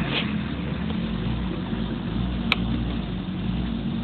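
Small three-horsepower engine of a miniature Škoda Popular running steadily at idle, with one sharp click about two and a half seconds in.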